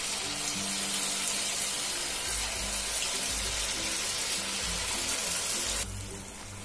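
Moong dal vadas deep-frying in hot oil, a steady sizzle that drops off sharply near the end.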